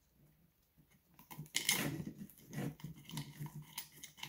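Gloved hands handling wires and small parts in a metal distributor housing: soft rustling and light clicks starting about a second in, with a repeated soft low pulsing alongside.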